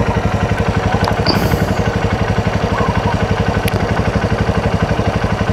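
Motorcycle engine idling steadily, close by, with an even, fast pulsing beat.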